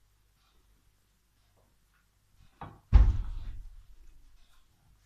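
A short knock, then a louder heavy thump a moment later that dies away over about a second, after a quiet stretch.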